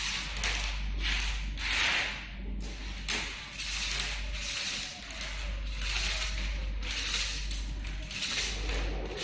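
Handling noise: repeated rustling and rubbing swells, irregular, one or two a second, over a steady low hum.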